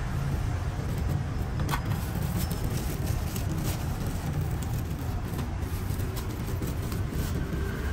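Steady road-traffic rumble from passing cars, with light crinkling of a thin plastic bag as it is twisted and tied shut.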